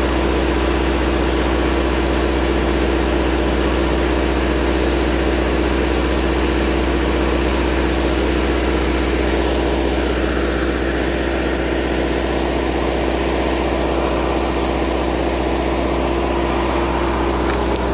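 Farm tractor engine running steadily at idle, turning a grain mill through a shaft welded onto the tractor's gearbox, as one unbroken mechanical drone with a deep hum.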